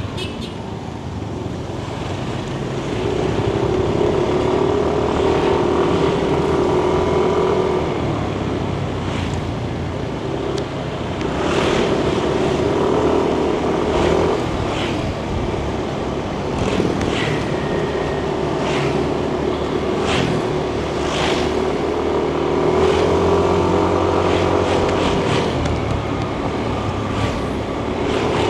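Yamaha NMAX 155 scooter's single-cylinder engine running on the move, its pitch climbing as it speeds up three times and dropping back in between. Short sharp road noises come and go over it.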